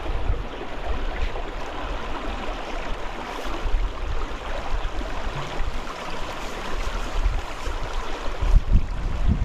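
Steady rushing noise of flowing water, with uneven low wind rumble on the microphone.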